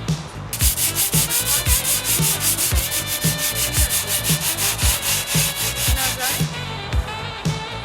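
Hand sanding of a repaired concrete edge, rapid even back-and-forth rubbing strokes, about four a second, from about half a second in until near the end. Background music with a steady beat runs underneath.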